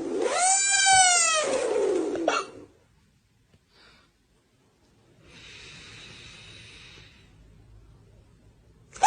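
A cat yowling: a long, loud drawn-out call that rises and then falls in pitch, ending about two and a half seconds in. A fainter breathy hiss follows, and another long yowl starts right at the end.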